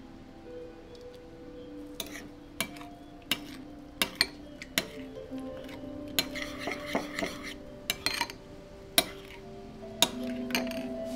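Metal spoon stirring a liquid marinade in a bowl, clinking sharply against the sides many times from about two seconds in, with a swishing scrape in the middle. Soft background music plays under it.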